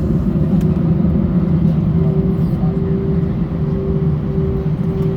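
Steady low cabin hum inside an Airbus A320 on the ground with its engines running at idle. About two seconds in, a steady mid-pitched tone joins the hum, with short breaks.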